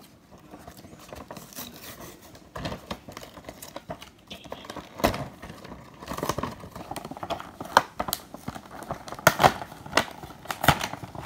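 Cardboard and plastic toy packaging of a Hot Wheels 5-pack being opened by hand: crinkling and crackling with sharp clicks and snaps, getting busier and louder in the second half.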